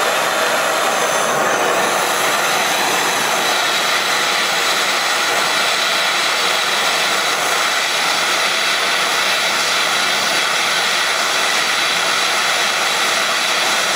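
Handheld gas torch burning with a steady hiss, its flame heating a small piece of spring steel so it can be bent into a V-spring without stressing it.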